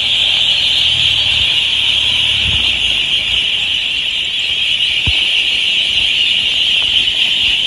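Dense, continuous high-pitched din from a very large flock of ducks calling all at once, steady and loud, with a low hum underneath during the first second or so.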